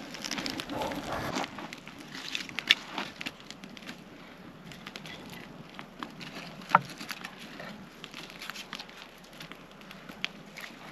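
Dry sticks and twigs crackling and snapping irregularly, with two sharper cracks, one a few seconds in and one near the middle.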